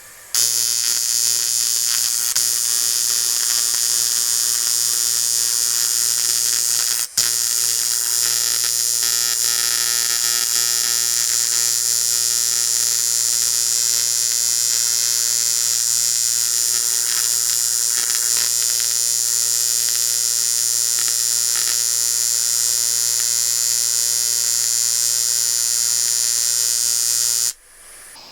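Arc welder welding a crack in an aluminium alloy wheel: a loud, steady electric buzz that starts about half a second in, breaks off for an instant about seven seconds in, and stops shortly before the end.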